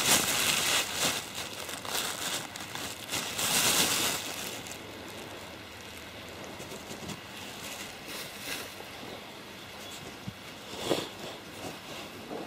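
Thin plastic bag crinkling as it is handled and opened, for about the first four seconds. After that come quieter small rustles and clicks, with one more brief crinkle near the end.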